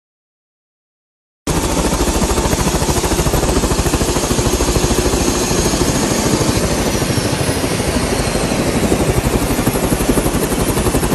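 Helicopter running close by, its rotor chop a fast steady pulsing under a loud rush of engine and rotor wash. It starts abruptly about a second and a half in.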